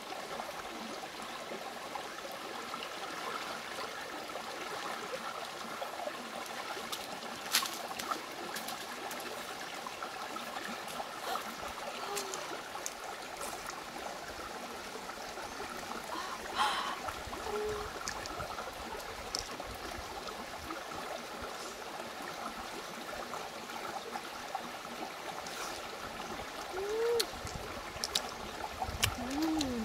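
Shallow stream babbling steadily over rocks. A few sharp clicks come through it, and there are a couple of brief sliding tones near the end.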